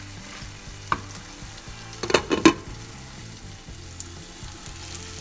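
Chicken sizzling in a pot on the stove, with a single knock about a second in and a short clatter of knocks around two seconds in as a glass lid is set on the pot.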